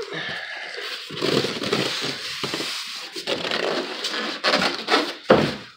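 Polystyrene packing foam being handled and shifted in a cardboard box, with continuous crunching and rubbing and a few sharper knocks near the end.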